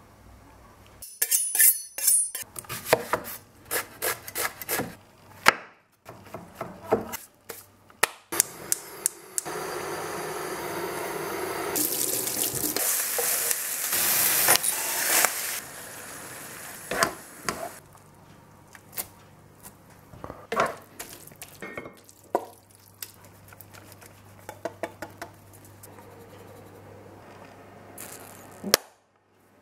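Home-cooking sounds: a knife chopping quickly on a wooden chopping board, then a steady hiss lasting about six seconds, then pots, pans and utensils knocking and clattering.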